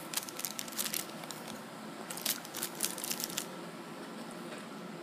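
Paper burger wrapper from Burger King crinkling and crackling as it is unfolded by hand. The crinkles come in two bursts of quick crackles and stop about three and a half seconds in.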